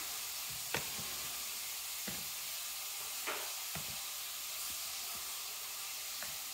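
A steady faint hiss with a few light taps and knocks, the sort made by hands handling things close to the microphone.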